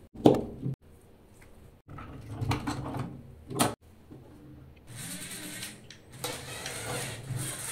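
Plastic LEGO parts knocking and clicking as they are handled, with one loud knock near the start. About five seconds in, the electric motors of two LEGO Technic cars chained together start up and keep running with a steady whir under load: a LEGO Power Functions motor and a red Chinese imitation.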